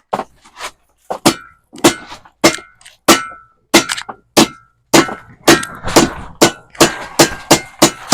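Repeated hammer blows on steel, each with a short metallic ring, about one every half second at first and quickening to more than two a second near the end.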